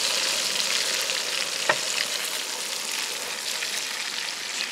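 Food sizzling in hot oil in a frying pan on a small gas camp stove, a steady hiss that eases slowly, with a single sharp click about a third of the way through.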